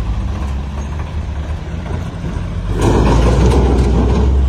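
Swaraj 855 tractor's three-cylinder diesel engine running under load as it pulls a heavily loaded trolley through mud; about three seconds in the engine note grows louder and rougher as it is given more throttle.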